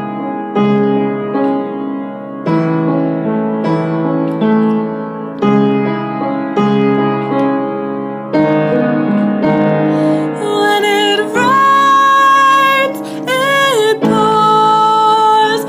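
Piano chords played slowly, a new chord struck every second or two. About ten seconds in, a woman's singing voice comes in over them without clear words, holding long wavering notes.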